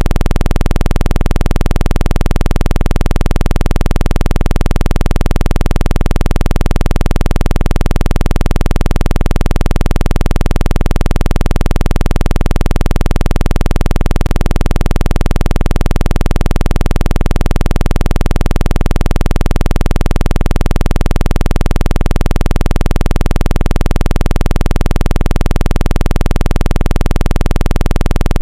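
Loud, steady synthesized low-pitched buzz that pulses rapidly and never lets up. It is a speaker-cleaning tone, played to vibrate water out of a phone speaker.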